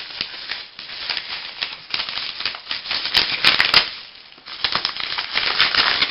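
Padded paper mailer being handled and opened, its paper crinkling and crackling in quick irregular clicks, with a brief lull about four seconds in.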